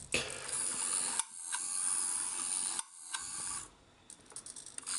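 Small geared motor of a 3D-printed antenna mechanism whirring in three short runs with brief stops between them, then falling silent after about three and a half seconds.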